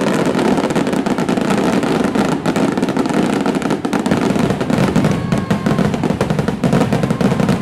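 A dense, unbroken barrage of daytime firework bangs, a salvo of rockets going off one on top of another in a rapid crackling rattle.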